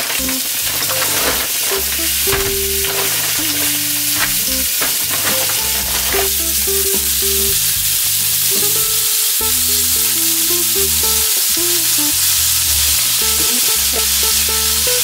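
Slices of pork sizzling as they fry in a pan: a steady hiss, with a few sharp clicks in the first few seconds.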